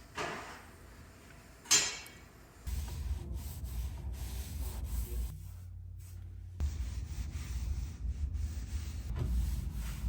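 Stain being rubbed onto wooden steps in irregular scraping strokes, with a sharp knock a little under two seconds in and a steady low rumble underneath from about three seconds on.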